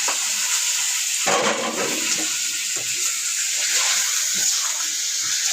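Chicken pieces sizzling in hot oil with browned onions in a karahi, a steady hiss that surges a little over a second in as the meat goes in or is moved.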